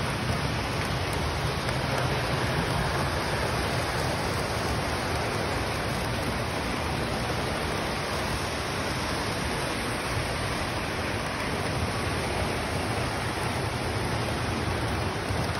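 Model trains running on a large layout's track, a steady rushing rumble of wheels and motors that does not let up.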